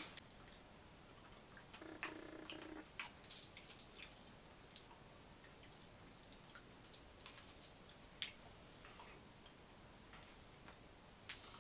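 Faint scattered clicks and crinkles from Toxic Waste sour hard sweets being unwrapped from their plastic wrappers and sucked, with a brief low hum about two seconds in.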